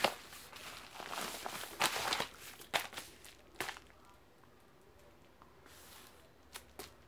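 Brown paper padded mailer crinkling and tearing as it is opened by hand, in a string of sharp rustling bursts over the first few seconds, then quieter handling as the book inside comes out.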